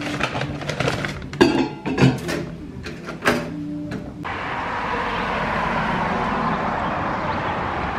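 A string of short clicks and knocks at a chrome two-slot toaster. About four seconds in it cuts to a steady rush of road traffic as a car passes.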